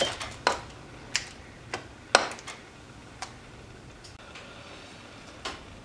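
Irregular light clicks and knocks of kitchen utensils against a dish or tray, about ten in the first three and a half seconds, the loudest just past two seconds in, then one more near the end.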